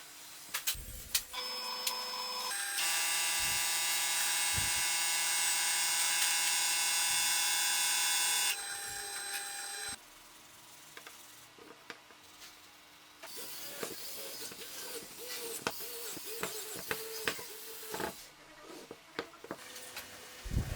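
Electric power tool motor starting up about two seconds in and running at a steady pitch for about six seconds, then cutting off and winding down. Scattered knocks and clicks of handling follow.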